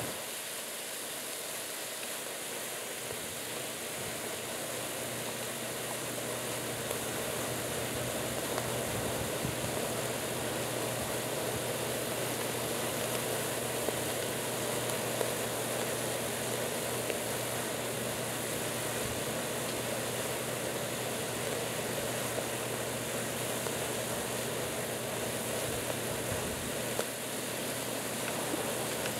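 Brine in a plastic bucket boiling hard around two electrodes fed straight from 120-volt AC mains, an electrode boiler drawing about 20 amps: a steady bubbling, fizzing noise.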